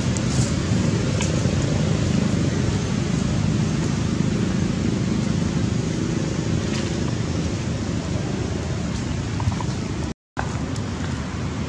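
Steady low outdoor rumble with a few faint clicks, briefly cutting out about ten seconds in.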